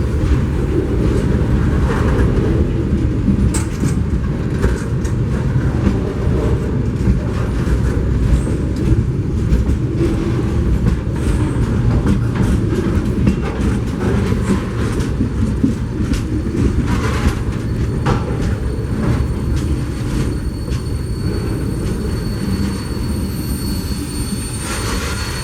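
New England Central Railroad freight train rolling past: a steady rumble of steel wheels on rail with scattered clicks. Thin high-pitched squeal tones come in faintly near the end as the sound eases off a little.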